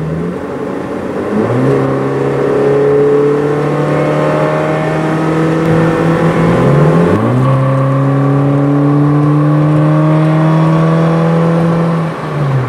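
Honda Civic D17 1.7 L four-cylinder engine exhaust through an aftermarket 4-1 header, accelerating with its pitch climbing slowly. About seven seconds in the pitch drops sharply, then climbs and holds again before easing off near the end.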